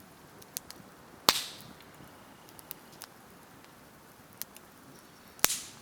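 Wood fire crackling, with scattered small ticks and two loud sharp pops about a second in and near the end.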